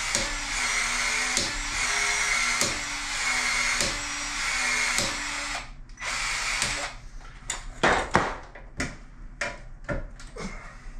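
A power tool runs steadily for about six seconds, its pitch sagging about once a second as if under load, then stops, runs again briefly, and gives way to scattered clicks and knocks of work on the pipes.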